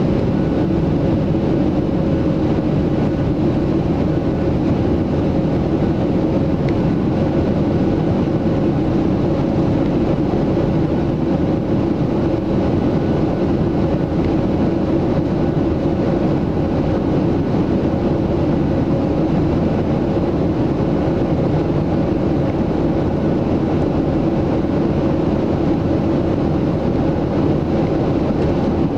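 Boeing 737-700 cabin noise in flight: a steady, loud drone of the CFM56-7B engines and rushing airflow heard through the fuselage, with a faint steady hum above it.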